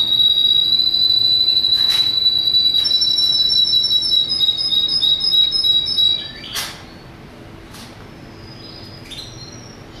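Russian crested canary singing: a long, steady whistled note with a fast trill of repeated notes layered over it from about three seconds in. The song stops about six seconds in, leaving a few short, fainter chirps.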